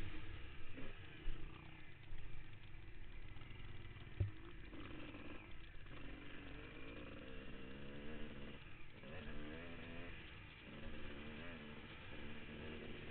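Motocross bike engine heard from the rider's helmet, revving up and down as the bike is ridden hard around the track, with the pitch dropping briefly about six and nine seconds in. There are a couple of sharp knocks, one about a second in and the loudest about four seconds in.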